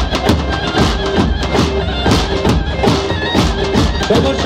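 Live Kurdish halay dance music: a shrill, reedy wind-like melody over a steady drum beat.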